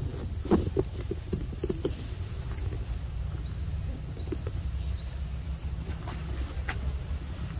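Forest insects trilling steadily at a high pitch, with a short rising chirp repeated about once a second, over a low steady rumble and a few soft rustles in the first two seconds.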